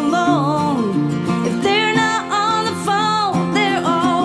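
Background music: a singing voice with vibrato over acoustic guitar and other instruments, in a country or bluegrass style.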